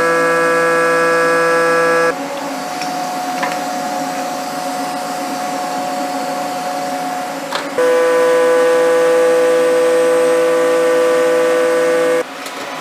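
CNC mill's end mill cutting an aluminium block under flood coolant, giving a loud steady pitched singing tone. The tone drops to a quieter, different note about two seconds in, comes back about eight seconds in, and cuts off about twelve seconds in.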